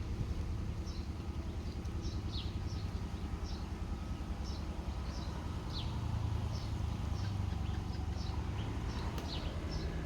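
Small birds chirping over and over in short falling chirps, about two or three a second, over a steady low rumble.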